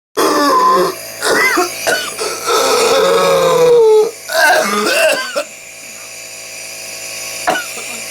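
A young man coughing in a fit of whooping cough (pertussis): a run of harsh, strained coughs and pitched vocal sounds. About three seconds in comes one long pitched sound, falling slightly. It eases to a quieter stretch about five and a half seconds in.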